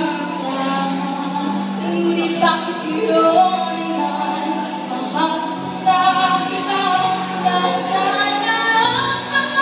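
A young female singer singing into a microphone over a backing track, amplified through the room's speakers.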